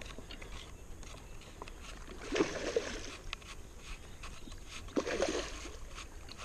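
A hooked carp splashing and swirling at the water's surface as it fights the line, twice: about two and a half seconds in and again about five seconds in.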